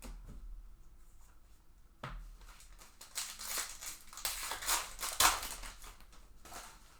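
Foil wrapper of a baseball card pack being torn open and crinkled, a sharp rip about two seconds in, then a run of crackling rustles.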